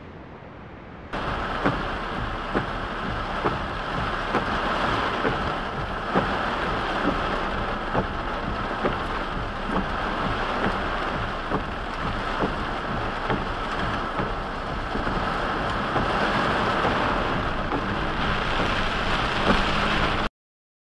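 Heavy rain hitting a moving car's windshield and roof, with a regular tap about once a second. It starts suddenly about a second in and cuts off abruptly near the end.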